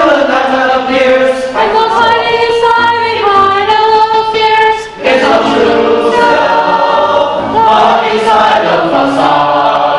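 Mixed choir of men's and women's voices singing a cappella, holding long notes in several parts at once, with a brief break for breath about halfway through.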